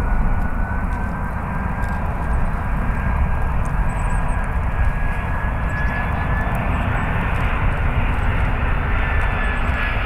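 Airbus A340 airliner on short final, its four jet engines giving a steady rushing drone with a thin whine on top, as the jet passes low toward the runway.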